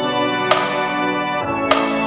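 Music: sustained chords with a sharp accented hit about every 1.2 seconds, twice here, about half a second in and again near the end.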